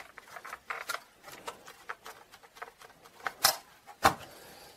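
A plastic multimeter case crackles and creaks in small ticks as it is squeezed and twisted by hand, with two sharper clicks near the end.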